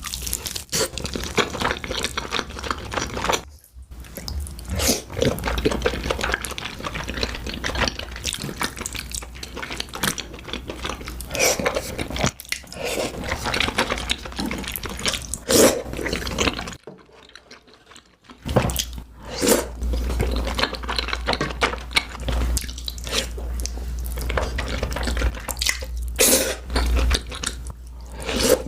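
Close-miked eating sounds: chewing, biting and mouth smacks, a dense run of small clicks. They are broken by two short quiet gaps, a moment about four seconds in and a longer one around seventeen seconds.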